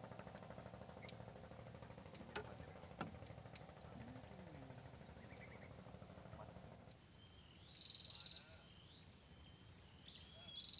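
Insects calling steadily at a high pitch, over a low motor hum that fades out about two-thirds of the way through. Near the end come two short, rapid trills.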